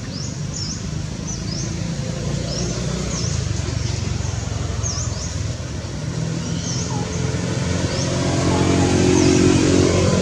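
A motor vehicle's engine running, getting louder toward the end, with a bird giving short, sharp, high chirps about once a second.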